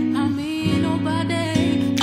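Background music: a voice singing a gliding melody over held chords that change about every second.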